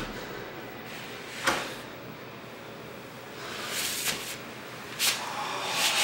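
A few soft rustles and light bumps: a person's clothing and body shifting against a door and floor, about one and a half, four and five seconds in.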